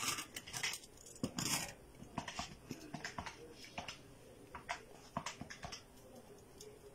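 A set of gold bangles being handled, with scattered light clicks and clinks as the bangles knock against one another and against the fingers.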